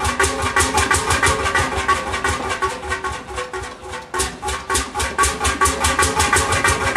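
Old Van Rennes Motor twin-cylinder diesel engine running with an even knocking beat, about four to six firing knocks a second. It eases off a little around halfway, then picks up again.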